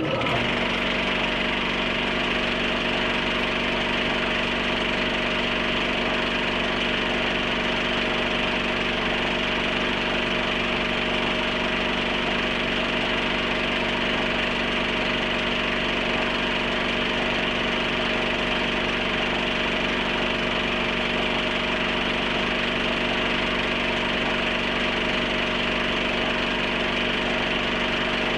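Film projector running: a steady mechanical whir that does not change.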